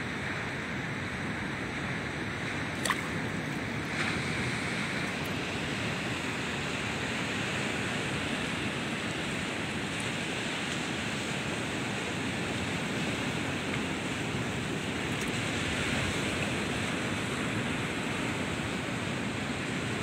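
Steady rush of sea surf mixed with wind, with one sharp click about three seconds in.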